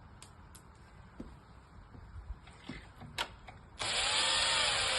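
A few light clicks of handling, then, about four seconds in, a power drill-driver starts up and runs for about two seconds, driving a long screw to fix a door latch; its whine drops in pitch as the screw bites.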